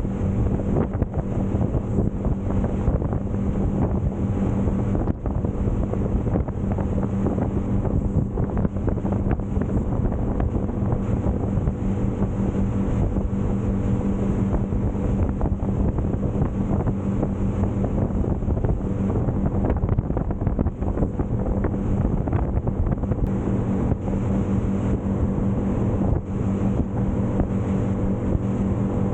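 Boat underway with its outboard engine running at a steady pitch, a constant drone through the whole stretch, with wind buffeting the microphone and water rushing past the hull.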